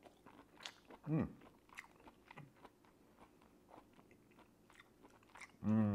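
A person chewing a mouthful of boiled shrimp, with many small wet clicks from the mouth. A short hummed "mm" falls in pitch about a second in, and a longer hummed "mm" comes near the end.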